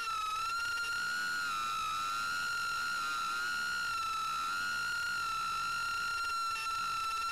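Mobula6 1S tiny whoop's four brushless motors whining at a steady high pitch, wavering slightly, as the little quad flies low carrying a fairly heavy load on a worn 450 mAh battery.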